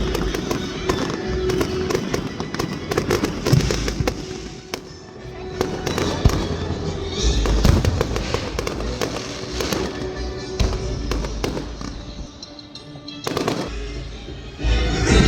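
Fireworks going off in rapid, uneven crackles and pops, with a low rumble beneath, over a song playing in the background.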